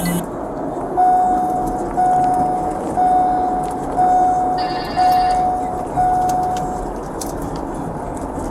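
A vehicle's electronic warning chime beeping six times, about once a second, at a single steady pitch. A brief higher warbling electronic sound comes in about five seconds in.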